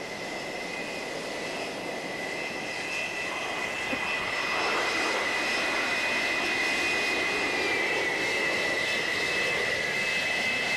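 Jet engines running on a carrier flight deck: a steady high whine over a broad roar, growing louder over the first few seconds and then holding. A second, fainter higher whine slides slightly lower about eight seconds in.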